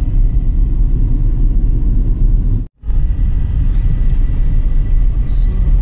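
Steady low rumble of a moving vehicle, heavy in the bass, which cuts out completely for a split second about halfway through.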